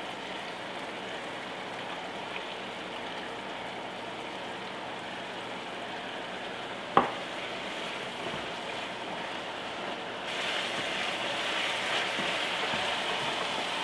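Ground beef and tomato sauce sizzling steadily in a cast-iron skillet as the sauce reduces and starts to dry out. There is a single sharp tap about seven seconds in, and the sizzle grows louder about ten seconds in as the mixture is stirred.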